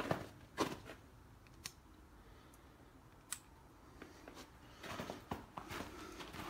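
Footsteps of a person walking: a couple of scuffing steps at the start, a few seconds of near stillness broken by faint clicks, then steps again from about five seconds in.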